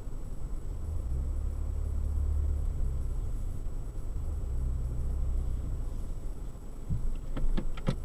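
Low, steady rumble of a car driving on a paved road, heard from a dashcam inside the car, with a faint constant high whine. About seven seconds in come a handful of sharp clicks or knocks in quick succession.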